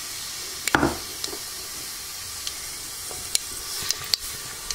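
Whole spices (bay leaves, cashews, star anise, cloves, cinnamon) sizzling steadily in hot oil in an aluminium pressure cooker. There is a knock about a second in and a few light clicks near the end.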